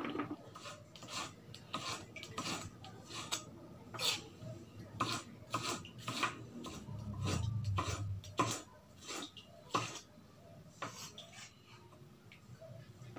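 Kitchen knife chopping vegetables, bitter melon and then tomato, on a thick round wooden chopping block and a metal tray, in irregular knocks with pauses. A low rumble comes in about halfway through.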